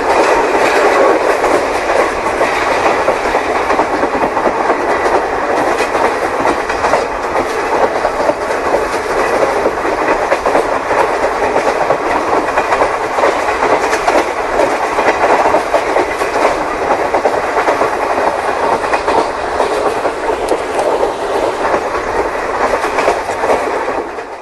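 OO-scale model train running on the layout, heard close up from the camera riding on it: a steady, dense rattle of small wheels clicking over the track and rail joints. It cuts off suddenly near the end.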